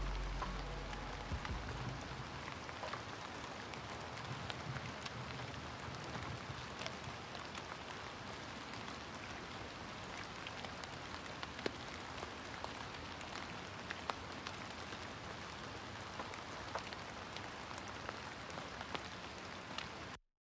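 The song's last low notes fade out in the first couple of seconds, leaving a quiet, steady patter of rain with scattered light drop ticks, which cuts off suddenly near the end.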